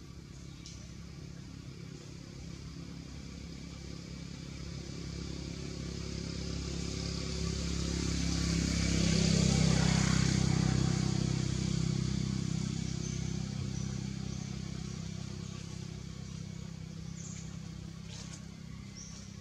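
A motor vehicle's engine passing by: a steady low hum and road noise that grow louder to a peak about halfway through, then fade away.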